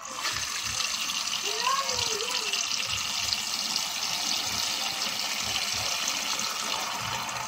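Kitchen tap pouring into a metal pot of quail eggs in a sink, filling it with water. The stream is turned up at the start, then runs in a steady gush.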